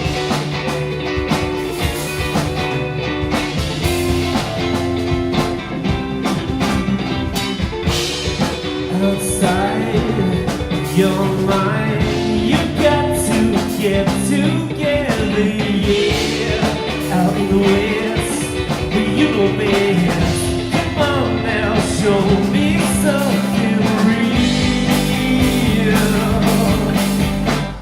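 Rock band playing live, with electric guitar and drums, and bent guitar or vocal notes sliding in pitch in the middle of the passage; the music breaks off abruptly at the end.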